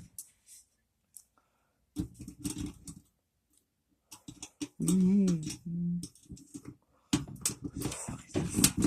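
Light clicking and scratching of bent tweezers working in a filing cabinet lock, in scattered runs that grow busier near the end. A short hummed or murmured voice sound comes in about five seconds in.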